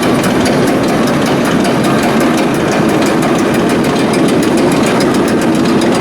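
Akasaka AX31R marine diesel main engine running steadily on the test bed, with a fast, even clatter of about six or seven ticks a second over a dense mechanical din.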